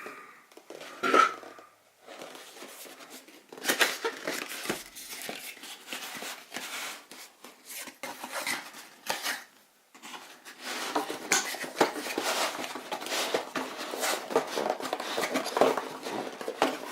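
Cardboard box and plastic packaging of a new tablet being handled and opened: irregular clicks, taps, rustling and scraping, with brief lulls about two seconds in and near the middle.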